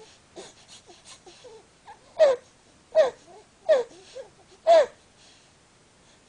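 An infant's honking stridor: short, pitched honks that each fall in pitch, faint at first and then four loud ones in a row, about one every three-quarters of a second. The honking is the typical noisy breathing of laryngomalacia, tracheomalacia and bronchomalacia.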